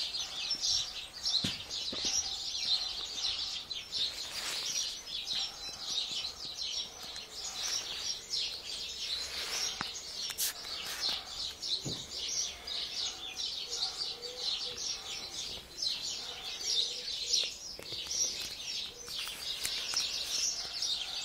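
Aviary birds chirping continuously: a dense, high-pitched chatter of many overlapping calls.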